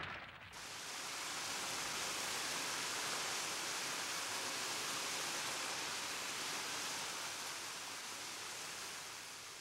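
Steady rushing hiss of ambient noise. It fades in just after a brief dip about half a second in and eases off near the end.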